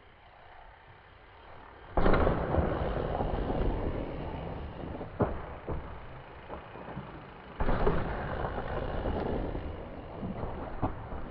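Mountain bike riding noise: a sudden loud rush of wind and tyre rumble about two seconds in and again near eight seconds, with a few sharp knocks from the bike in between.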